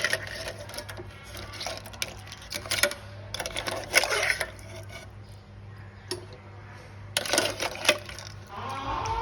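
Irregular clattering and clicking of kitchen utensils and dishes, in clusters of sharp knocks over a steady low hum.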